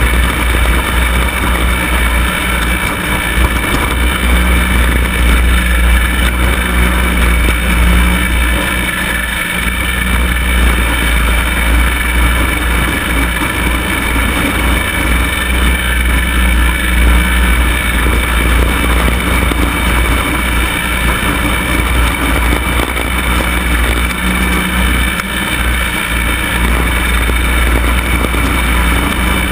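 Cub Cadet mower's engine running steadily while mowing grass, with the cutting deck's blades turning.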